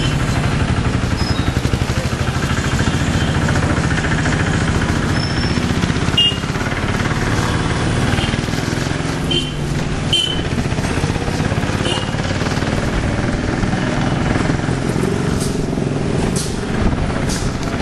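City street traffic heard from a moving bicycle: motor vehicles running steadily, with a few short high-pitched beeps about six, nine, ten and twelve seconds in.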